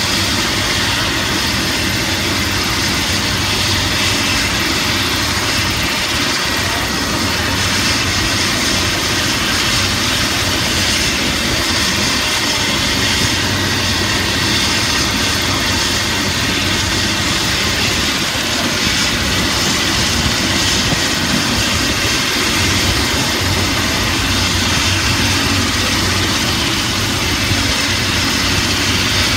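Police helicopter's turbine engine running at ground idle: a loud, steady rushing whine with a low hum and no change.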